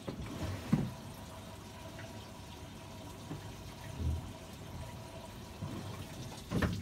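Washing machine filling with water: a steady hiss of running water, with a few soft knocks.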